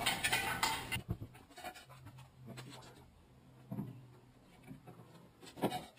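Handling noise and light clatter for about a second, then a few faint scattered knocks over a low steady hum.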